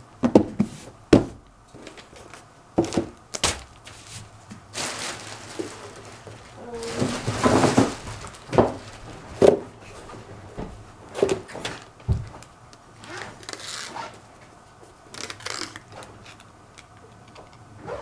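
Clear packing tape being pulled off its roll and smoothed by hand onto a painted box, with scattered knocks and taps as the box is handled. A longer scraping, hissing stretch comes about seven seconds in.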